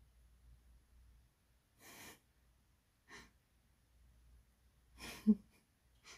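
A person's soft breaths close to the microphone: short exhalations about two seconds in and just after three seconds, then a longer breath around five seconds that ends in a brief voiced sound, the loudest moment.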